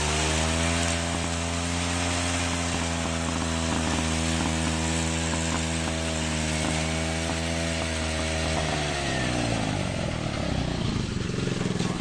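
Small gasoline engine of a mini rice and wheat reaper running steadily at high speed. About nine seconds in, its pitch falls as the engine slows.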